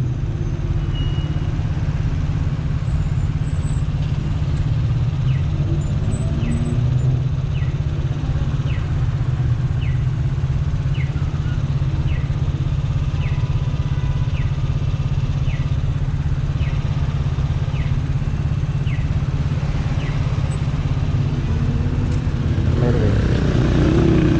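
Italika DT 125 motorcycle's single-cylinder four-stroke engine running steadily while riding. A short, high, falling chirp repeats about once a second through the middle stretch.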